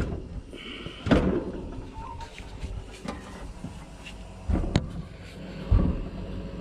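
Clunks and knocks of a portable fridge on its fridge slide being pushed back in: a knock about a second in, two more around four and a half seconds, and a heavier thud near six seconds, over a steady low hum.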